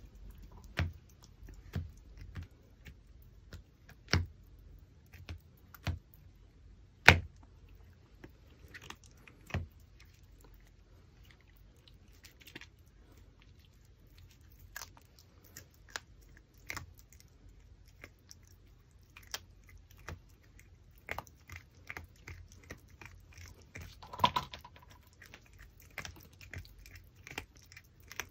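A Pomeranian puppy gnawing and chewing a raw pork backbone: irregular crunches and clicks of teeth on bone and meat. The biggest bites come in the first third, and smaller, quicker chewing follows toward the end.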